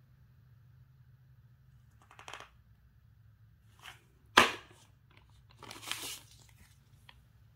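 Plastic bag wrapping and paper cards crinkling and rustling as a hand handles them in a router's packaging box, in a few short spells, with one sharp, loud crackle about halfway through.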